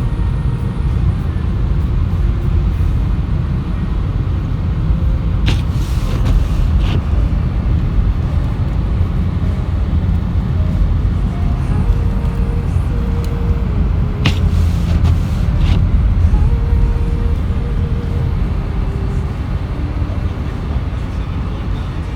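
Steady low rumble of a car driving on a road, with a few brief clicks about a quarter and about two-thirds of the way through.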